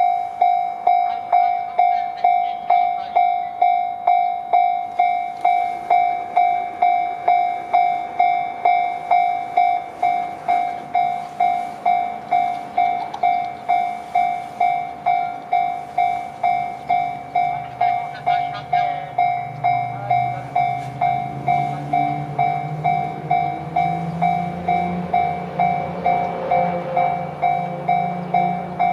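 Japanese level-crossing warning bell ringing its repeated electronic ding, a little under two strikes a second. In the last third a train approaches on the line, its low rumble growing louder under the bell.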